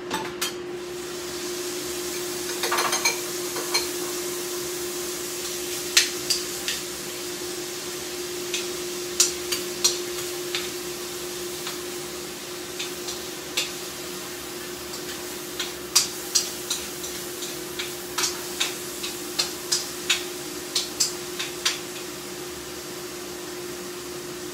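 Sea cucumber sizzling in a pan, with a metal utensil stirring it and clinking against the pan at irregular moments, over a steady hum.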